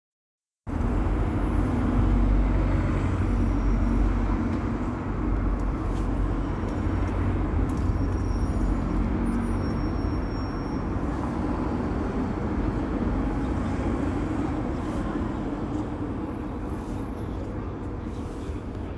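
Steady low rumbling background noise that starts just under a second in and eases slightly toward the end.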